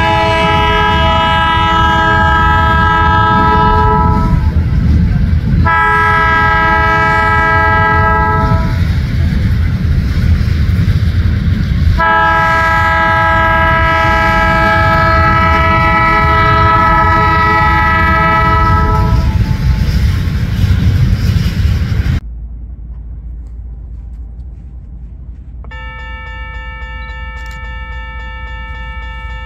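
Diesel locomotive air horn on IHB GP40-2 units sounding three blasts, about four, three and seven seconds long, over the low rumble of the passing train. The sound drops off abruptly about 22 seconds in, and from about 26 seconds a grade-crossing signal bell rings steadily and more quietly.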